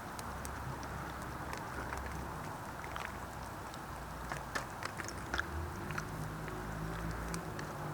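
Steady low rumble with scattered faint clicks and ticks; a low steady hum comes in about six seconds in.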